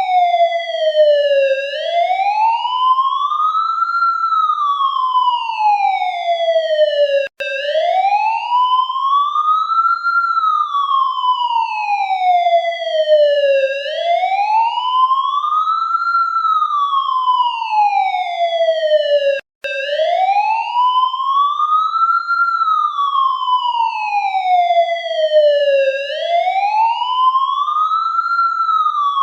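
Police siren in a slow wail, its pitch rising for about two and a half seconds and falling for about three and a half, cycle after cycle. Twice it cuts out for an instant and starts again.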